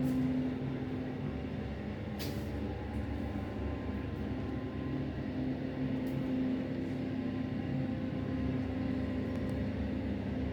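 Steady low mechanical hum, like a motor or engine running, with a single sharp click about two seconds in.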